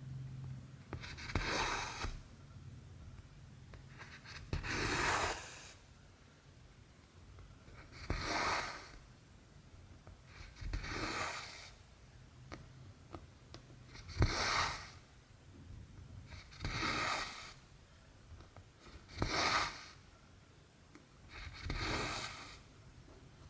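Cotton embroidery thread being pulled through cross-stitch fabric: eight swishes, each under a second, about every two and a half to three seconds, with faint ticks of the needle between them.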